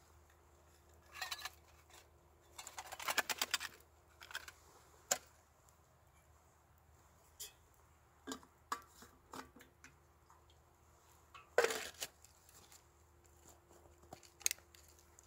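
Camp kit being handled and packed away: scattered clicks, knocks and light metallic clinks of a metal mug and gear. There is a quick run of rapid clicks about three seconds in and a louder knock near twelve seconds.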